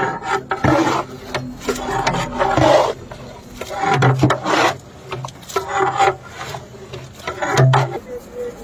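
Long metal spatula scraping and turning chicken and curd in a large metal cooking pot, in a series of irregular rasping strokes.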